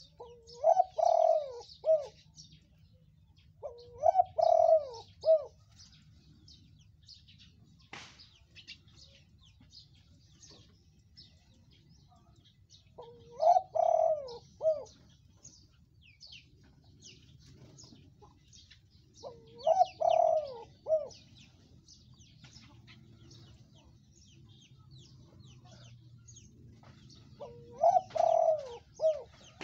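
Spotted dove cooing: five separate coo phrases of a few notes each, each about a second and a half long, the first two close together and the rest spaced several seconds apart. Faint high chirping runs underneath.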